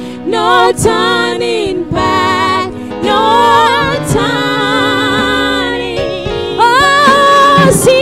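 Women singing a gospel worship song through microphones, in phrases with held, wavering notes, over a steady instrumental backing.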